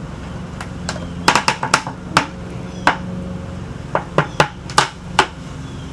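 Rusty railroad spikes and horseshoes knocking and clinking against each other as they are handled. The knocks come in two clusters, one starting a little over a second in and another about four to five seconds in.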